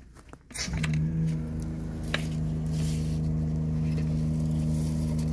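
High-pressure drain jetter's engine coming in about a second in and then running steadily, pumping water down the jet hose to clear a blocked sewer drain.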